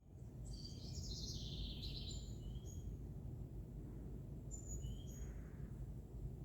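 Small songbirds chirping and twittering in two short spells, with thin whistled notes, over a steady low background rumble.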